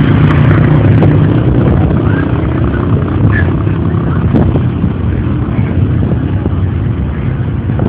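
Motor vehicle engines running, loud and steady, with the sound heaviest in the low end.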